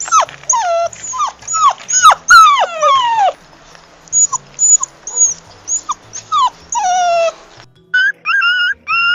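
Puppy whining and crying: a rapid series of short, high cries that each fall in pitch, several a second, easing off briefly about four seconds in. Near the end, a different run of short, even-pitched whines begins.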